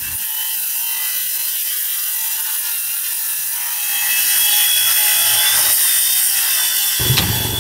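Makita circular saw cutting through plywood roof decking: a steady, high-pitched hiss with a thin whine, getting louder about four seconds in. A few knocks come near the end.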